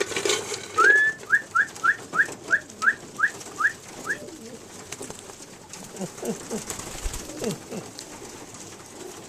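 Young racing pigeons: a quick run of about ten short rising peeps, then a few low cooing calls near the end.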